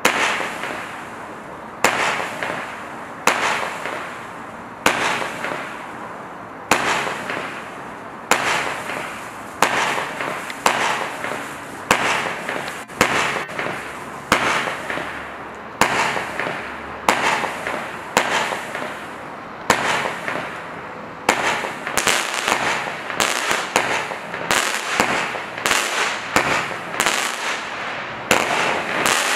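Black Cat 'Stardust' consumer firework cake firing shot after shot, each a sharp report trailing off into crackle as the glittering stars burst. The shots come about every second and a half, then quicken into a faster run for the last several seconds.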